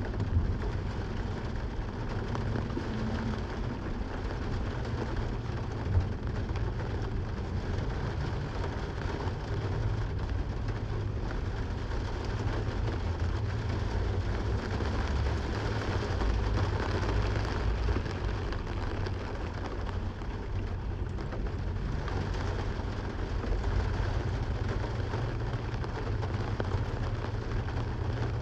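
Steady rain with a constant low rumble underneath, and a single sharp knock about six seconds in.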